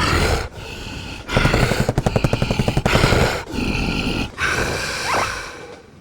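Cartoon slapstick fight sound effects: grunts and a scuffle, with a rapid run of blows around the middle.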